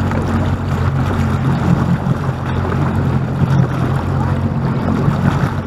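Sea-Doo's engine running at a steady speed, with rushing water and wind noise over it.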